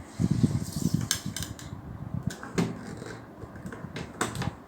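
Hands handling the plastic parts of a steam iron, with rustling and a few sharp clicks and knocks as the steam hose is twisted to disconnect it.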